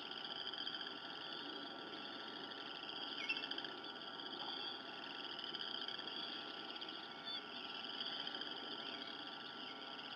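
A continuous high-pitched trilling chorus of calling animals, with a single short chirp about three seconds in.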